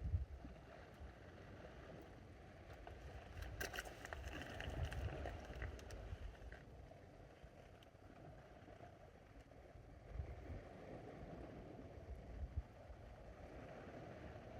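Wind gusting on the microphone over the steady wash of the sea, with a few light clicks about four seconds in.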